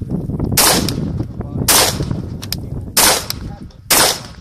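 AR-15 rifle firing four shots about a second apart at steel targets, with fainter ticks between the shots.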